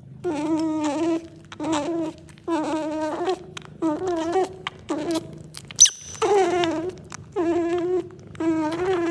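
Otter pups squeaking in about eight repeated cries, each half a second to a second long and fairly steady in pitch. A single sharp click comes about six seconds in.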